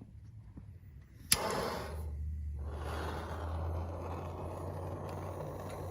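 A sharp click about a second in, then a steady low hum under a rushing noise.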